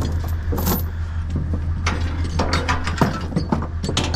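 Rapid metallic clicking and clanking, thickest in the second half, over the steady low hum of an idling engine.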